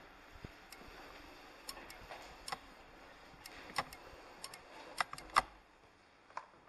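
Irregular sharp clicks and knocks as a motorcycle is moved by its rider into a stone passage and he gets off it, the loudest pair a little after five seconds in.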